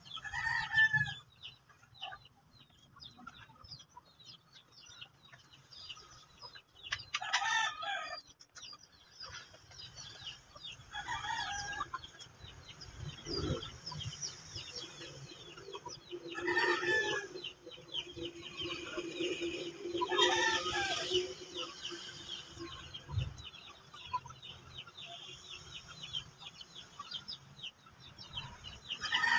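Chickens: roosters crowing several times at intervals, with hens clucking, over faint high bird chirps and a couple of short knocks.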